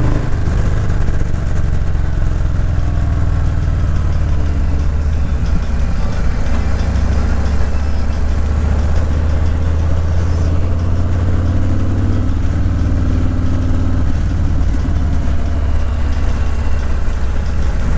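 Motorcycle engine running steadily while riding, with wind noise over it.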